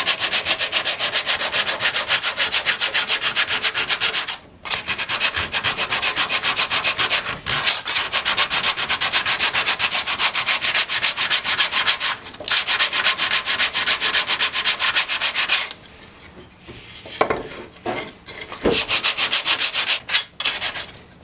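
60-grit sandpaper rubbed by hand in fast back-and-forth strokes over a wooden handsaw handle, stripping off the old lacquer. The strokes are rhythmic and scratchy, with a few short pauses and a longer break about three quarters of the way through before they resume.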